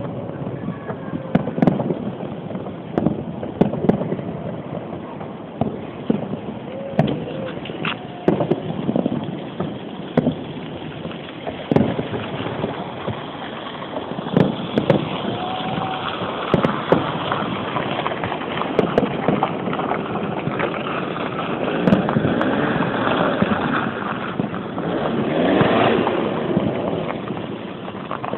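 Fireworks salute bursting with irregular bangs every second or two over a steady din of background noise, which grows denser in the second half.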